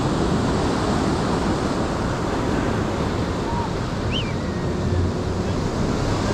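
Ocean surf washing steadily onto the beach, with wind buffeting the microphone. A short high chirp sounds once, about four seconds in.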